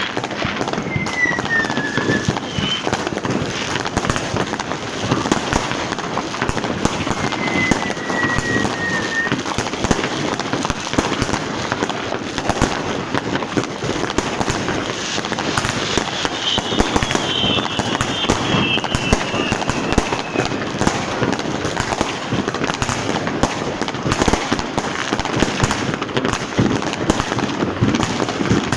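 Continuous barrage of New Year's Eve fireworks and firecrackers: dense, overlapping cracks and bangs without a break, with a few high whistles that fall in pitch, one a few seconds in, one near the middle, and a cluster of several together past halfway.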